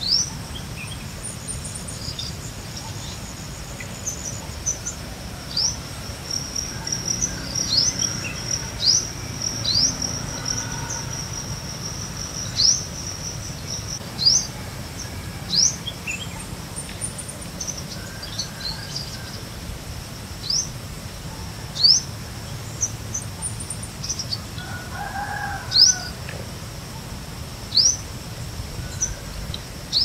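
A bird repeating a short, sharp upward-sweeping note every second or two over a steady, high-pitched insect drone, with a brief lower call near the end.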